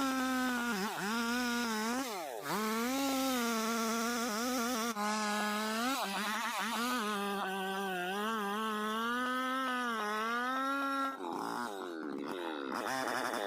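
Two-stroke chainsaw running at high revs while cutting into a tree. Its pitch sags and recovers several times as the chain bogs in the wood. About eleven seconds in, the note turns rougher and less steady.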